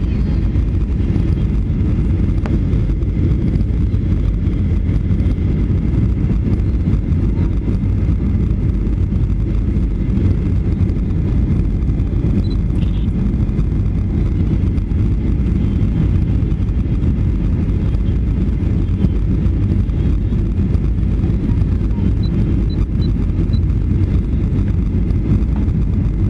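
Steady low rumble of a Boeing 757-200's engines and airflow, heard inside the passenger cabin during the descent.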